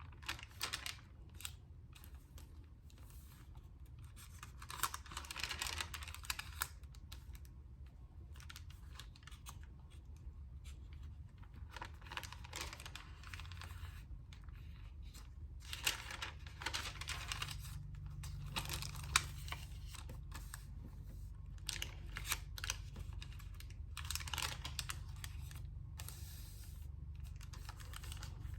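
Thin onion skin paper pages of a journal being turned and handled: crisp rustling and crinkling in several bursts, with small taps and clicks between them.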